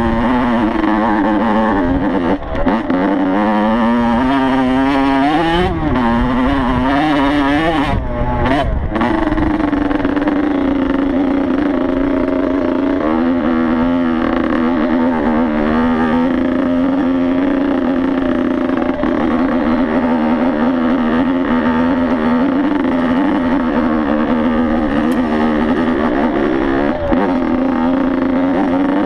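Yamaha YZ85 two-stroke dirt bike engine being ridden. Its pitch rises and falls with the throttle, with a few quick chops, over roughly the first nine seconds, then it runs at a steadier pitch.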